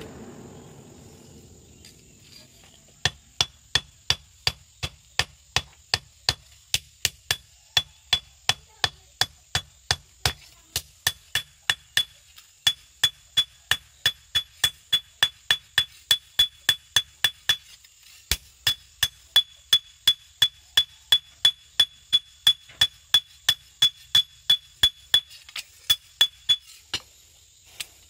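Blacksmith's hand hammer striking a red-hot machete blade on an anvil, a steady run of sharp ringing blows about two a second, with brief pauses about halfway through. A low rushing noise fades out during the first two seconds before the hammering starts.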